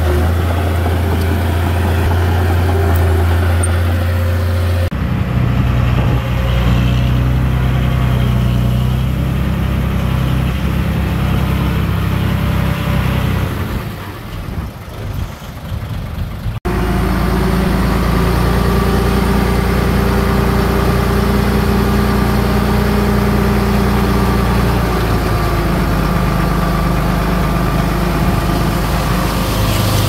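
Diesel engines of heavy earthmoving machinery running steadily. The engine sound changes abruptly about five seconds in, drops a little, then cuts sharply to another steady engine sound just past halfway.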